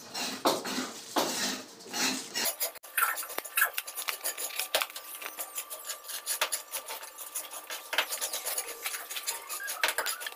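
Handling of a cardboard-wrapped bundle of wooden door jamb pieces: cardboard and paper rustling for the first couple of seconds, then many small sharp crackles, clicks and knocks as the wrapping is pulled open and the wood shifts.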